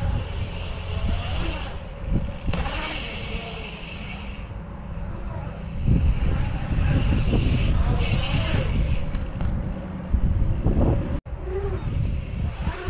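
Bike tyres rolling and swooping across a concrete skatepark bowl, the hiss swelling and fading as the rider carves the walls, over a steady low rumble on the microphone. The sound cuts out abruptly about eleven seconds in, then resumes.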